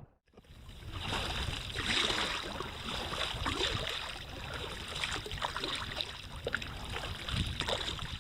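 Water splashing and sloshing against a kayak's hull, an irregular, continuous wash.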